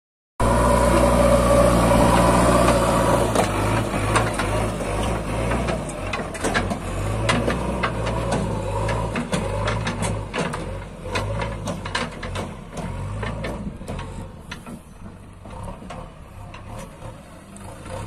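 JCB backhoe loader's diesel engine running loud and close, then growing fainter as the machine drives away across the dirt. Scattered clicks and knocks sound through it.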